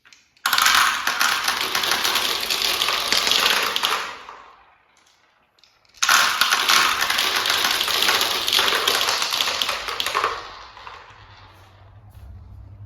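Marbles clattering and rolling along a plastic marble-run track, in two loud bursts of dense rattling about four seconds each, separated by a short near-silent gap. A low steady hum comes in near the end.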